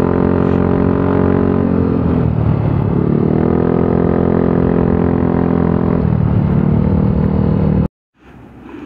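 Motorcycle engine running while riding. Its pitch drops about two seconds in and climbs again, dips once more around six seconds, then the sound cuts off abruptly near the end.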